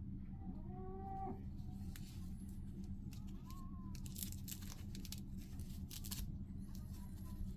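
Clicks and rustling from handling a wristwatch and its packaging, over a steady low hum. Near the start there is a short pitched call lasting about a second, rising in pitch.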